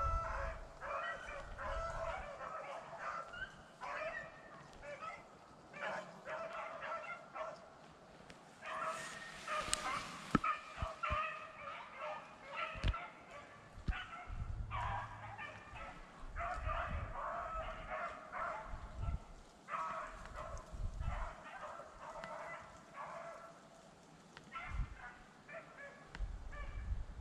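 A pack of beagles baying and yelping together, nearly without a break: hounds in full cry as they run a rabbit's track.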